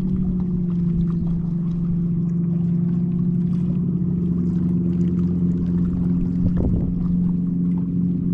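Motorboat engine running at a steady pitch: a constant hum with a low rumble beneath it. A brief knock or splash comes about six and a half seconds in.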